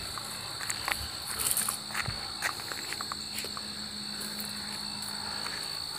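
Steady high-pitched insect drone, typical of crickets, with a few faint rustles and steps scattered over it.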